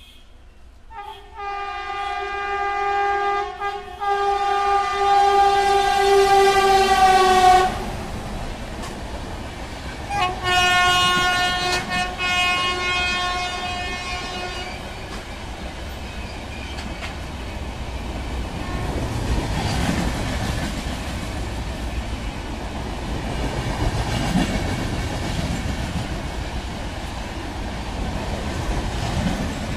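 Indian Railways WAP-7 electric locomotive sounding its horn in two long blasts, the first from about a second in to about eight seconds, the second from about ten to fifteen seconds in. The Purvanchal Express's coaches then pass with a steady rumble of wheels on the rails.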